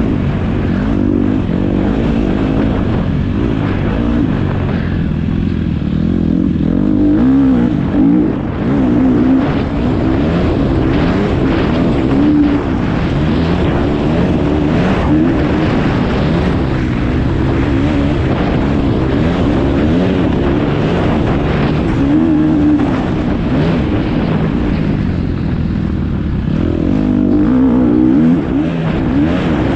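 Motocross bike engine being ridden hard, its revs climbing and falling over and over as the rider works the throttle and gears around the dirt track, heard up close from on the bike.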